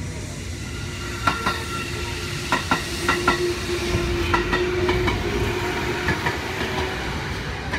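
A JR 221 series electric commuter train passing on the next track, its wheels clacking over rail joints several times over a steady rolling rumble, with a held tone in the middle.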